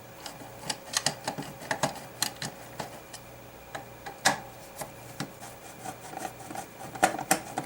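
Irregular small metal clicks and taps of a screwdriver and loose screws being handled while screws are taken out of a car amplifier's circuit board and heatsink, with a sharper knock about four seconds in and a few quick clicks near the end.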